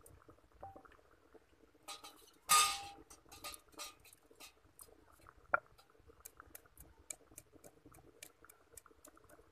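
Spices being crushed by hand with a stone on a stone rolling board used as a grinding slab: a loud clink about two and a half seconds in, then from about six seconds short, even taps of the stone on the board, about three a second.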